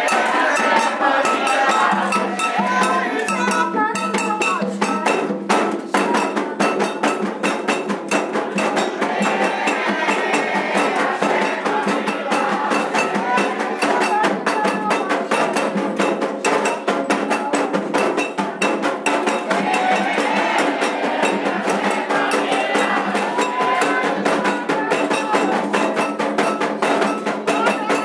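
Candomblé ritual music: voices singing a chant together over fast, steady percussion with metal bell strikes.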